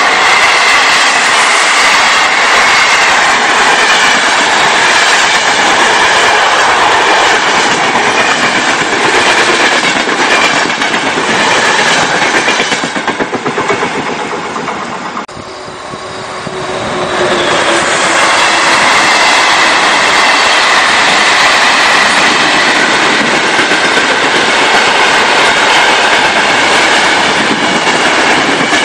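Electric-hauled express passenger train passing close at speed, its wheels clattering rapidly over the rail joints with a faint wheel squeal. The noise dips briefly about halfway through, then picks up again.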